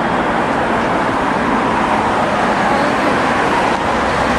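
Steady running noise of a vehicle in traffic: an even rumble and hiss with no distinct events.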